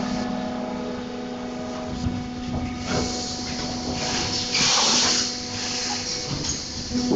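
Armour 220 injection moulding machine running with a steady hum. A couple of seconds of rushing compressed-air hiss near the middle, loudest about five seconds in, as the mould works through its cycle.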